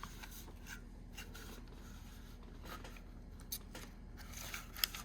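Faint handling sounds of hand tools being picked up and moved: light rubbing with a few small clicks, two of them sharper near the end, over a low steady hum.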